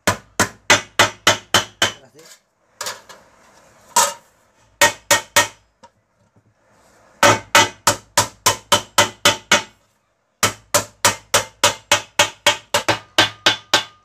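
A mallet beating the edge of a thin metal sheet over a wooden beam, folding a seam flange, in quick runs of sharp ringing strikes about three a second, broken by short pauses.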